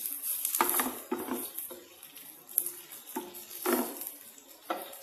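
Spatula stirring and scraping shredded chicken and meatballs in a non-stick wok, with frying sizzle, in separate strokes and a sharp utensil knock about two and a half seconds in.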